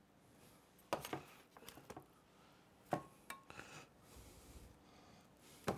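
A spoon clinking and scraping against a dish while scooping roast vegetables: three sharp clinks about two seconds apart, each followed by a few lighter clatters.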